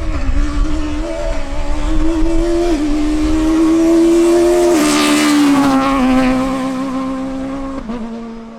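Peugeot 306 Maxi Kit-Car's four-cylinder engine at full throttle as the rally car passes, its note dropping with upshifts about three, five and eight seconds in. It is loudest around halfway, then fades as it drives away.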